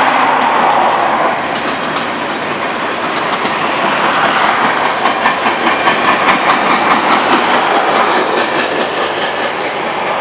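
Freight train cars, covered hoppers and tank cars, rolling past with steel wheels clicking over rail joints. A quick run of clacks comes about halfway through.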